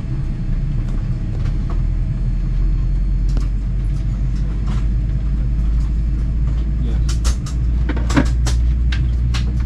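Steady low rumble inside the cabin of a Boeing 787-9 airliner on the ground, from its engines and air systems, growing a little louder about half a second in. Near the end comes a run of sharp clicks and knocks.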